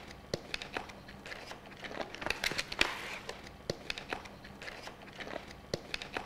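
Cardboard box and packaging being handled and cut open: scattered clicks and rustling, with a louder crinkling scrape about two and a half seconds in.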